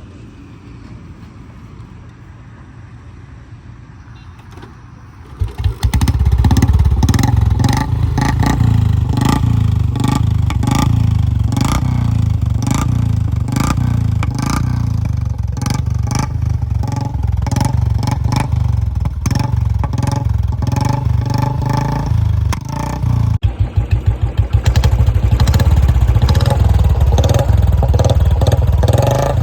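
Royal Enfield Classic 350 BS4's single-cylinder engine running through an aftermarket mini Punjab silencer, giving a steady, rapid thumping exhaust beat. It is fairly quiet at first and becomes much louder about five seconds in, with a brief break about two-thirds of the way through before it carries on loud.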